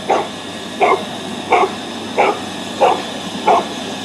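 A dog barking over and over in a steady rhythm, six barks about two-thirds of a second apart.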